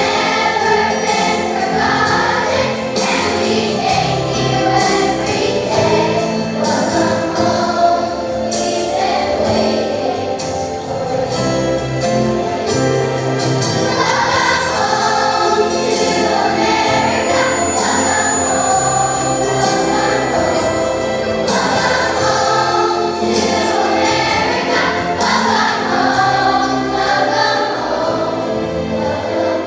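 Student chorus singing a song, voices together in a continuous choral melody.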